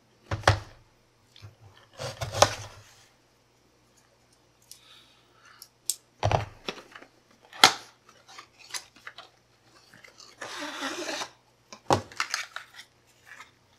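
Product packaging being cut open with a knife and handled: scattered sharp crinkles, clicks and crunches, with a scraping, tearing stretch of about a second near the end.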